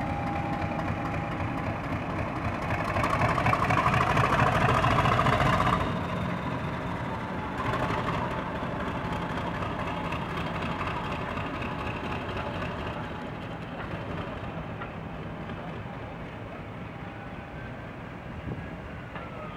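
Class 50 diesel locomotive's English Electric 16-cylinder engine powering up as it pulls away with its train, with a rising whine. It is loudest in the first few seconds, then fades steadily as the locomotive draws off.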